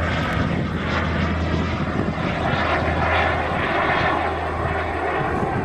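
Turbine engine of a radio-controlled model jet flying overhead: a steady rushing jet noise.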